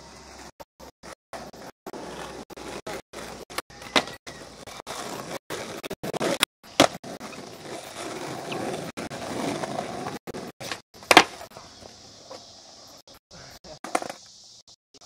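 Skateboard wheels rolling on an asphalt street, with three sharp clacks of a board striking the ground, the loudest late on. The sound cuts out briefly again and again from old videotape dropouts.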